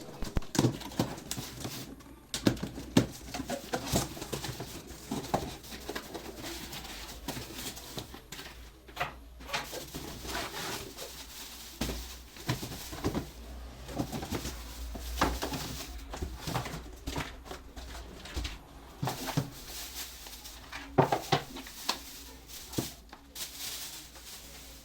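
Parts of a small electric fan being handled and fitted together during assembly: irregular clicks, knocks and rustling.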